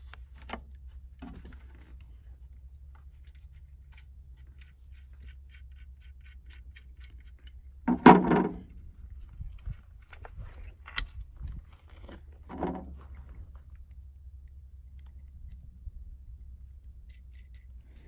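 Small metal clicks and rattles of an adjustable wrench working the mounting nut of a panel toggle switch loose, with two louder knocks about eight and twelve seconds in, over a steady low hum.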